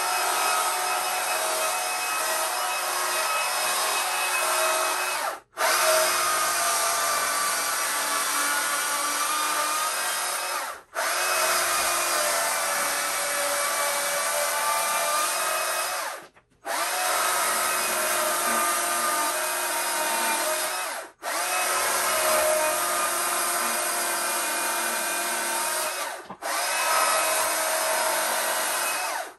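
Stihl chainsaw running at speed and cutting into a short length of Christmas tree trunk to carve it. The steady high-pitched cutting sound cuts off suddenly five times, about every five seconds, and starts again at once.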